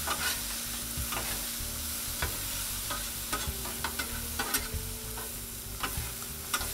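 Diced potatoes, onions and bell peppers sizzling on a Blackstone steel griddle top, with bacon frying beside them, while two metal spatulas mix them, giving irregular sharp clicks and scrapes against the steel.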